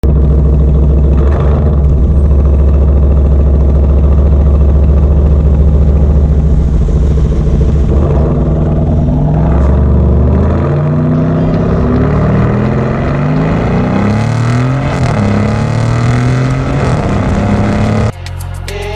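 Lamborghini Urus SE's twin-turbo V8 through a full Novitec exhaust: a loud, deep exhaust note, steady at first, then rising and falling in pitch with revs through the second half. Music cuts in just before the end.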